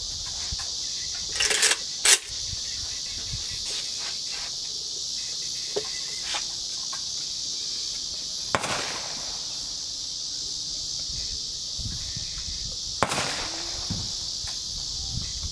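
Gunshots on an outdoor range over a steady high buzz of insects. A quick cluster of shots and a louder single shot come about two seconds in, then single shots about halfway through and near the end, each with a short echo.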